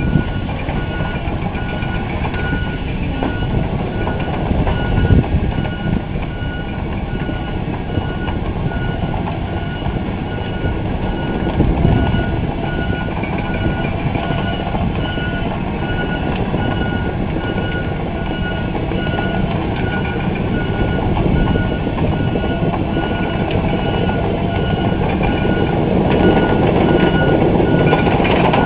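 Tracked excavator's diesel engine running as the machine travels, steel tracks clattering, with its travel alarm beeping in a steady repeating pattern. It gets louder near the end as the machine comes closer.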